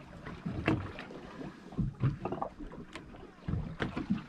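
Water slapping against the hull of a drifting fishing boat, with a few short knocks scattered through.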